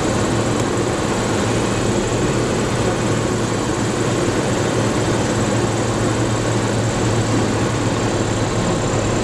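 The single four-cylinder Lycoming O-320 engine and propeller of a 1977 Grumman Cheetah droning steadily, heard from inside the cabin on approach to land. There is a low, even hum with a constant pitch and no change in power.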